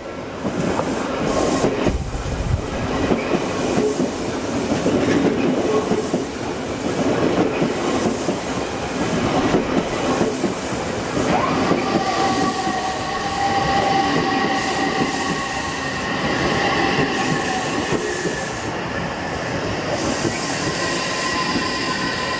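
Odakyu Line electric train running past a level crossing, its wheels rumbling and clacking over the rails. Through the second half, steady high tones sound over the rumble.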